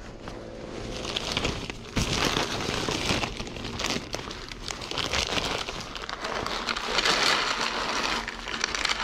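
Plastic bags crinkling and rustling while dry cat food is handled and poured out, with the kibble rattling into a tray.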